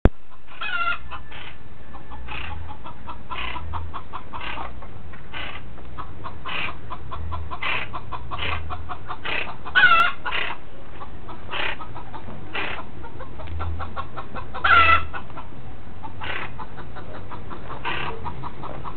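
Plain chachalaca calling: short calls repeated about once a second, with three louder, higher calls near the start, about halfway, and a few seconds later.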